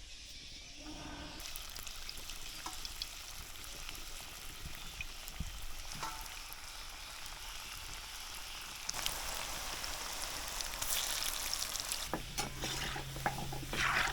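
Food frying in hot oil in a pan, sizzling and crackling, with stirring; the sizzle grows louder about nine seconds in. A low steady hum joins near the end.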